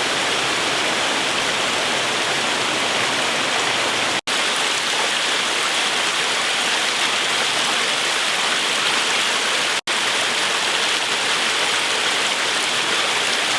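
Waterfall: a steady rush of falling water that cuts out for an instant twice.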